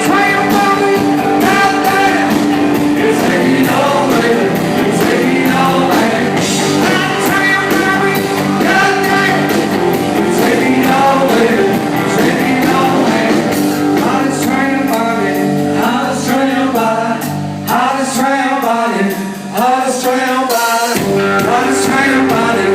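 Rock band playing live at a sound check: a singer over guitars and a steady rhythm section.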